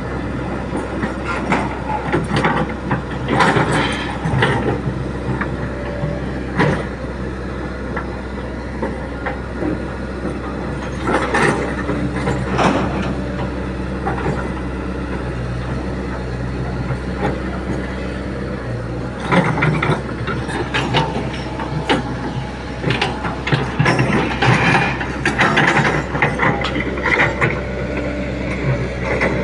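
Hitachi Zaxis 110 excavator's diesel engine running steadily under load, with metallic clanking and rattling from its steel tracks and bucket as it works soil. The clatter comes in bursts: about three seconds in, around eleven to thirteen seconds, and most of the time from about nineteen seconds on.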